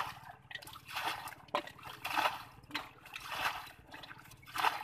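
Hands splashing and sloshing through shallow muddy water in irregular bursts while groping for fish in the mud, over a faint steady low hum.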